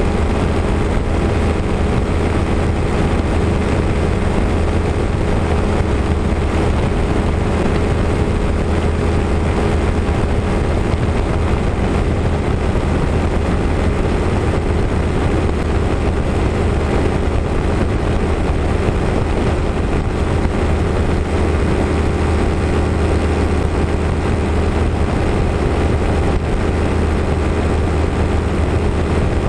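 Engine and propeller of a light single-engine aircraft running steadily in cruising flight: a constant, unchanging drone.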